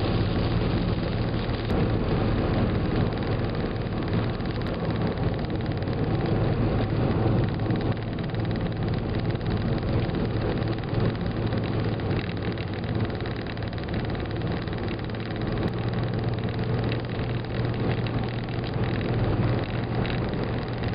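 Car driving at road speed, heard from inside the cabin: a steady low engine hum under even road and tyre noise.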